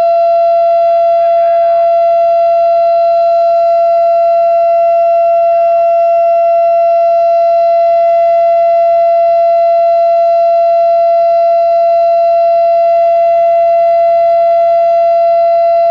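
Federal Signal Thunderbeam (RSH-10) electronic outdoor warning siren, its reflector disc broken, sounding its steady alert: one loud unwavering tone, constant in pitch and loudness.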